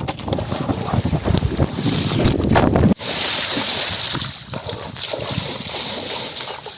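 River water splashing and rushing, with wind buffeting the microphone. About three seconds in the sound breaks off abruptly and goes on as a steadier hiss of moving water.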